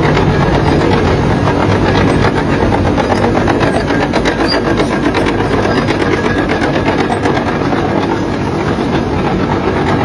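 Crawler bulldozer working: diesel engine running with the steel tracks clanking and clattering, loud and steady.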